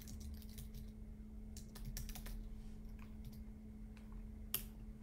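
Typing on a computer keyboard: a scatter of light key clicks, bunched in the middle, with one louder click near the end, over a faint steady hum.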